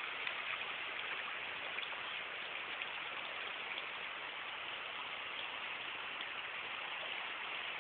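Steady hiss of water, even throughout, with faint scattered ticks.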